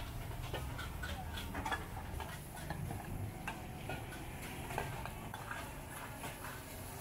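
Metal cooking utensils clinking against a bowl and scraping in a wok: scattered sharp clicks over a low steady rumble.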